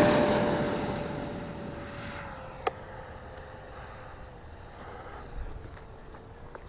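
E-flite Viper 70mm electric ducted-fan jet on a 6S battery at high power: a steady fan whine with a rush of air, fading quickly as the jet flies away. Its pitch dips slightly a little after two seconds in, and a single sharp click comes shortly after.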